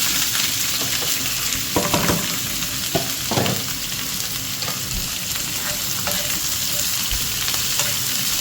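Escovitch pickle vegetables (sliced onion, carrot, Scotch bonnet and bell peppers) sizzling steadily in hot oil, with a few knocks and scrapes of a utensil stirring them in the pan about two and three seconds in.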